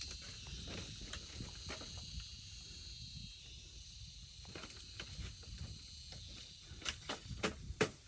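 Bamboo slat bed creaking and clicking as a person shifts his weight on it, with a cluster of louder sharp clicks near the end as he sits up. A steady high insect buzz runs behind and fades about halfway.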